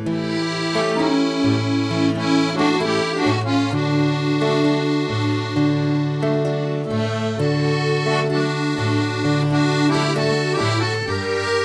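Accordion playing an instrumental passage of a havanera between sung verses, a held melody over bass notes that change about once a second.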